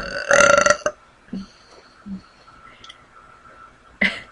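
A woman's loud burp, brought up by fizzy cola, lasting about half a second just after the start. It is followed by a couple of faint small sounds and a short, sharp gulp- or hiccup-like sound near the end.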